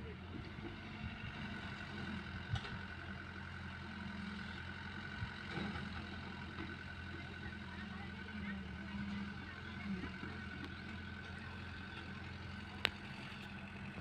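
Diesel engines of an excavator and a tractor running steadily at a low, even hum. One sharp click near the end.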